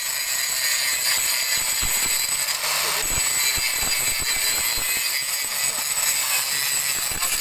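A machine running steadily with a high-pitched hiss, with scattered short knocks.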